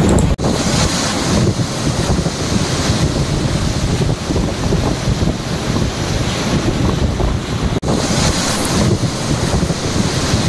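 Wind buffeting the microphone over the rushing water of a moving boat's wake, a steady loud noise broken by two momentary gaps.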